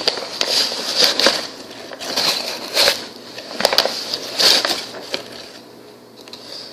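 Quarter-cup measuring cup scooping flour and being scraped level, a run of short scrapes and taps over about the first five seconds, then quieter.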